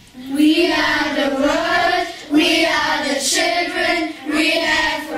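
A group of children singing together, a short tune in about four phrases with brief breaks between them.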